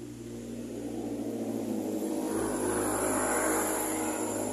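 A motor vehicle passing along the street, its engine and tyre noise swelling to a peak about three seconds in and then fading.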